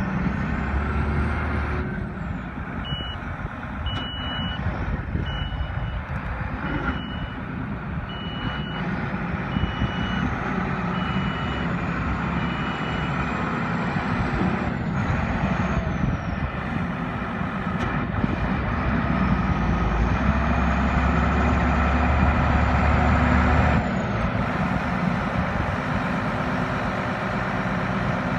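Diesel engine of a 2002 Mercedes-Benz Unimog U2150L running as the truck manoeuvres, with its reversing alarm beeping about once a second from about three seconds in until about halfway through, then stopping. A faint high whine rises and falls twice.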